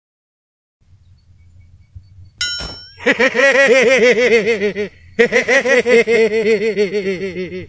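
A short metallic ding, then a man's loud, rapid ha-ha-ha laugh in two long stretches with a brief break in between.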